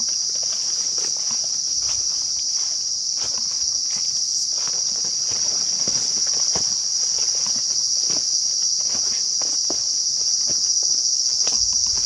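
A steady, high-pitched chorus of forest insects, with irregular footsteps on leaf litter and leaves rustling as someone walks through undergrowth.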